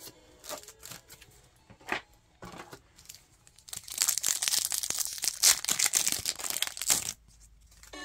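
Foil wrapper of a Pokémon trading card booster pack being torn open and crinkled: a few short rustles and tears, then about three seconds of loud, continuous crinkling starting about four seconds in.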